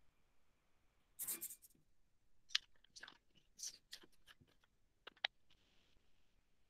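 Faint handling noises: a short rustle about a second in, then half a dozen sharp separate clicks over the next few seconds.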